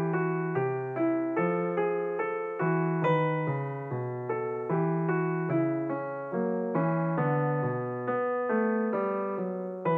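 Background piano music: a slow, even melody of single notes over lower notes, each note struck and then fading.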